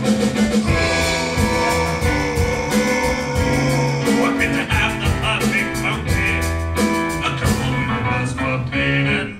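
Band music from a comedy horror stage musical: held notes over a steady beat.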